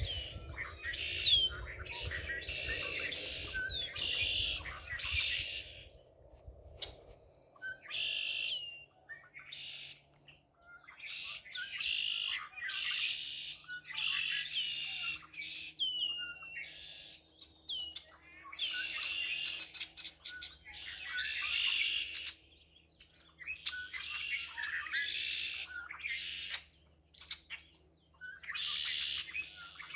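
Songbirds singing in repeated phrases of about two to three seconds each, with short pauses between them, full of quick high chirps and sweeping notes.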